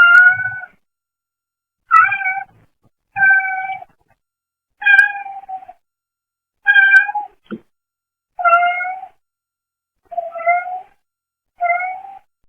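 A brown tabby cat meowing repeatedly: about nine short meows, one every second or two, heard through a pet camera's low-quality microphone.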